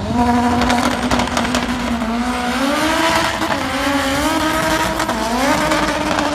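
A drag car's engine running at high revs on a run down the strip: one steady engine note that climbs in pitch twice, about two and a half seconds in and again near five seconds.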